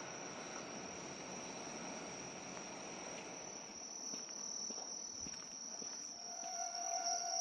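Insects chirping steadily in a continuous high buzz, over the fading rumble of a departing diesel train that dies away over the first few seconds. About six seconds in, a steady tone starts.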